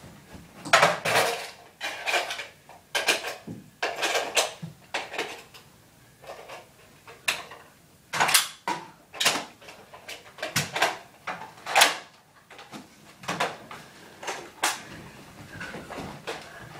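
Toy foam-dart blasters clacking as they are primed and fired indoors: a long run of sharp plastic clacks and knocks at irregular intervals.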